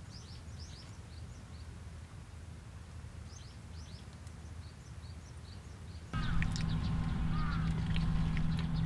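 Faint small-bird chirps, short repeated notes over quiet outdoor ambience. About six seconds in the sound cuts to a louder steady low hum, with more chirping and a few small clicks.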